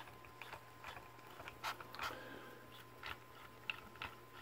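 Faint, irregular light clicks from a Stuart 10V model steam engine being turned over by hand at its flywheel, its piston and valve gear just loosened with WD-40. A steady low hum sits behind it.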